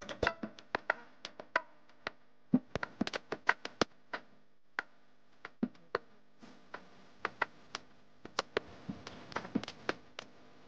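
Irregular sharp taps and clicks, a few each second, uneven in loudness.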